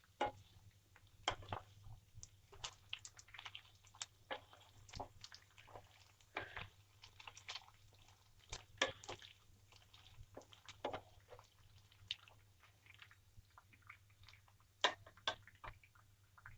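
Almonds and peanuts being stirred and roasted in a pan with a little oil: quiet, irregular clicks and crackles as the nuts knock and scrape against the pan, a few sharper ones among them, over a faint steady low hum.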